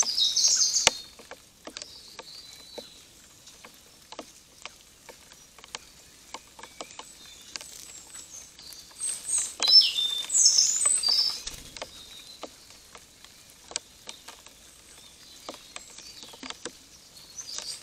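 Rain dripping, irregular single ticks throughout, with three bursts of high chirping birdsong: at the start, a louder stretch in the middle, and again at the end.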